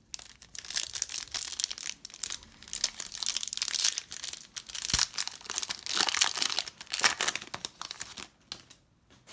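Crinkling and tearing of a plastic trading-card pack wrapper being ripped open and handled, with a dull knock about five seconds in.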